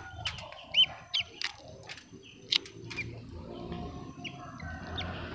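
Duck eggshell cracking as fingers pick it off a hatching egg, in several sharp clicks, with short high peeps from ducklings throughout.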